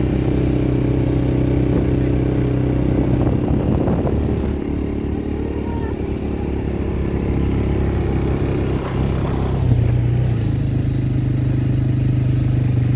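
Quad bike engine running steadily while riding over sand dunes, its pitch stepping up about ten seconds in.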